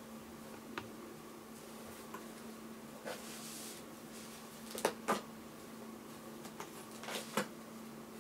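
A cat pawing and scratching at a taped cardboard box: a few short scratches and taps, the loudest pair about five seconds in and another pair near the end.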